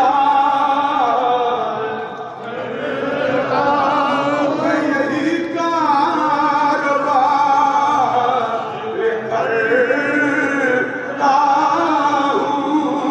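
A man's voice chanting verse in a melodic, drawn-out recitation, with held notes that waver in pitch and a short breath about two seconds in.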